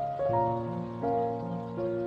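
Soft, slow ambient music of held tones, the chord changing about every second.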